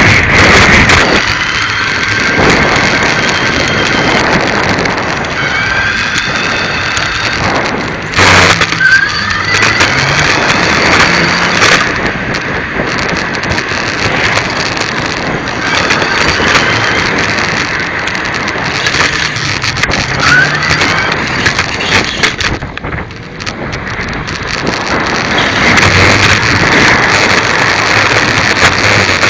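Riding noise from a bicycle-mounted phone: steady wind buffeting on the microphone with tyre and road rumble and rattling, and a few short squeaks that rise in pitch.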